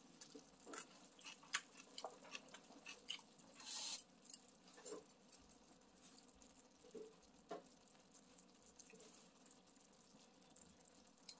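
Faint eating sounds: scattered small clicks and taps of metal chopsticks picking bulgogi from a frying pan, with soft chewing and a brief hiss about four seconds in.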